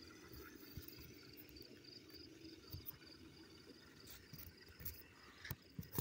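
Faint, even insect-like chirping, about five chirps a second. In the second half, a few sharp knocks and scrapes as the phone is handled against the wood of the stump.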